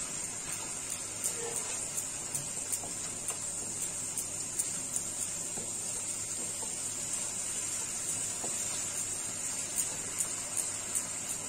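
Chilli-garlic and ginger paste frying in hot oil in a kadai as it is stirred: a steady high sizzle with frequent small crackles and pops.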